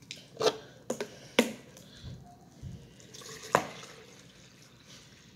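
Cranberry grape juice poured from a plastic bottle into a large fountain cup, with a few sharp plastic clicks from the bottle and cup being handled in the first second and a half and once more about three and a half seconds in.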